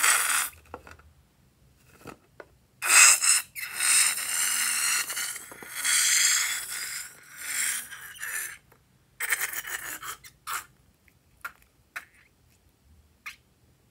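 Slime squelching out of a squeezed rubber balloon, and the balloon's rubber squeaking and rubbing under the fingers as it is handled and peeled off, in several long bursts. A few short clicks near the end.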